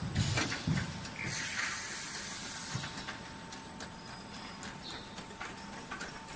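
Automatic piston filling and screw capping machine running: a few knocks, then a hiss of air lasting about a second and a half, followed by scattered light clicks.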